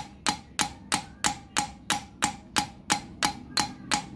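A screwdriver repeatedly strikes a motorcycle engine valve down onto its seat in the cylinder head, about three sharp metallic taps a second, each with a brief ring. This is valve lapping by impact with coarse grinding paste, seating the valve so the head won't leak compression.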